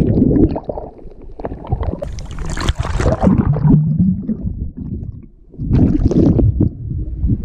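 Muffled underwater churning and bubbling, heard from beneath the surface just after a plunge into the water, with a brief low steady tone near the middle. The sound drops away about five seconds in, then the churning comes back.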